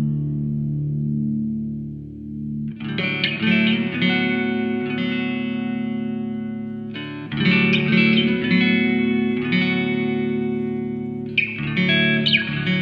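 Background music led by guitar played through effects: sustained chords that ring on, with a fresh chord struck about every four seconds.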